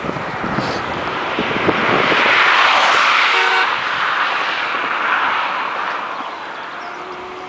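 A road vehicle passing by on the asphalt road: its tyre and road noise swells, is loudest about three seconds in, then fades away.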